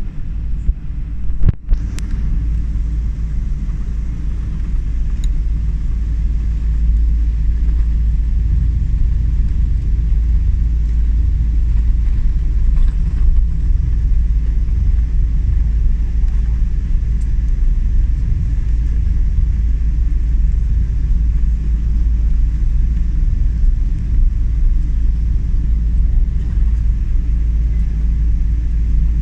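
Steady low rumble inside a Boeing 777's cabin as the airliner taxis on the ground, its engines running at taxi power. One sharp knock sounds about a second and a half in.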